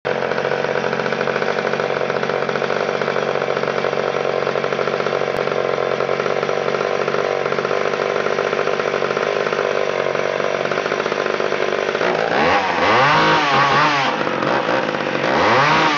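McCulloch Power Mac 700 chainsaw's 70cc two-stroke engine idling steadily, then revved up and let back down twice in the last few seconds.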